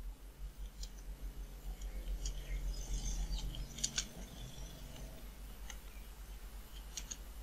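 Computer keyboard being typed on: scattered sharp key clicks, a cluster of them near the middle, over a steady low electrical hum.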